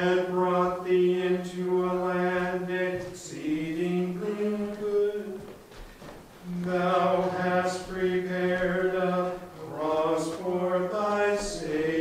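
Unaccompanied liturgical chant: a voice holds long notes, mostly on one reciting pitch, in phrases of a few seconds with short breaks between them.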